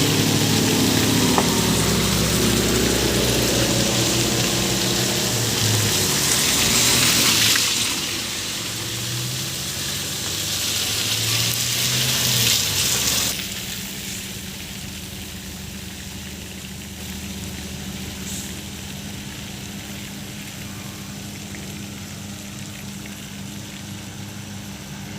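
A vehicle engine running and revving with a loud hissing rush of water over it, as the muddy road is sprayed. About 13 seconds in the rush and engine drop away suddenly, leaving a quieter steady hum and hiss.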